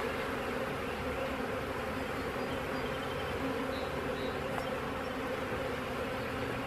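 Honeybees buzzing around an opened hive: a steady hum of many wings at several pitches at once.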